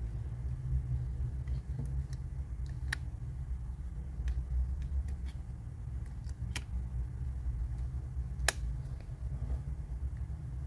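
Sharp plastic clicks from handling a white AirPods-style earbud charging case: the earbuds clicking in and out and the lid snapping, the loudest snap about eight and a half seconds in. A steady low rumble runs underneath.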